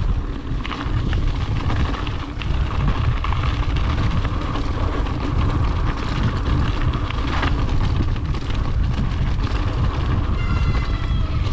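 Mountain bike ridden down a dirt trail: heavy wind rumble on the microphone with the bike rattling over rough ground. A brief high squeal near the end.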